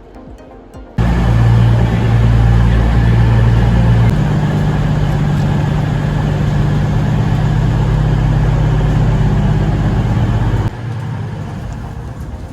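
Diesel passenger train's engine running with a steady low drone, its note shifting about four seconds in. It starts and cuts off abruptly.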